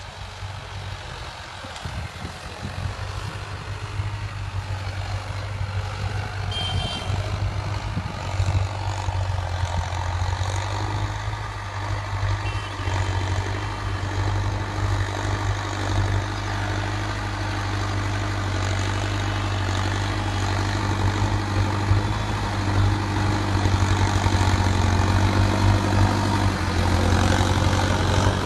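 Mahindra Arjun Novo tractor's diesel engine running steadily under load while driving a rotavator through the soil, growing louder as the tractor comes closer.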